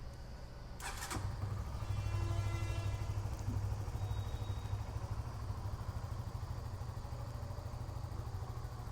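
Honda CBR150's single-cylinder engine idling, rising briefly in level around two seconds in before settling back to a steady low idle, with a sharp click about a second in. It runs smoothly, with no abnormal noise.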